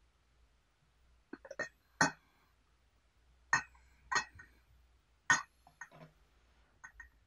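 Glass lid of a glass teapot clinking against the pot about ten times at uneven intervals, sharp knocks with a short glassy ring.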